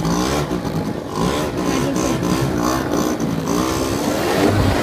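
Quad's engine running under way, its pitch wavering up and down with the throttle.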